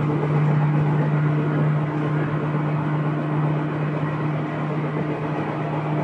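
Ueda Electric Railway Bessho Line electric train standing at the platform before departure, its on-board equipment giving a steady low hum with a fainter higher tone above it.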